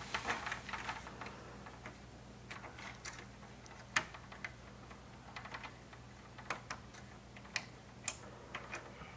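Faint, scattered small clicks and taps of hands handling screws and a 3D-printed plastic camera bracket against a plastic grille, about a dozen irregular ticks, over a low steady hum.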